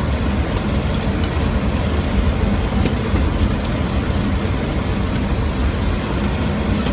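Steady cockpit roar of airflow and engines inside a Boeing 737-800 on short final approach, with a few faint ticks about a second in and again around three seconds in.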